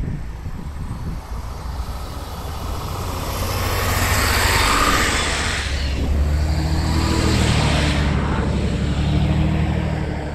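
Road traffic passing close: a swell of tyre and engine noise that peaks about four to five seconds in and fades, followed by a low, steady engine hum.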